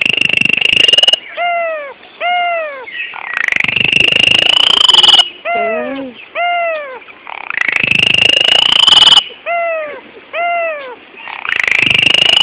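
A caged starling with a white head and black wings calls loudly over and over. Each round is a long, harsh, slightly rising screech of about two seconds followed by two short down-curving whistled notes, repeated about three times.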